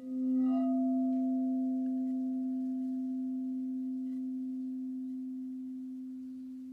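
Frosted quartz crystal singing bowl sounded with a mallet, with a light knock about half a second in. It rings one steady, pure low tone that fades slowly.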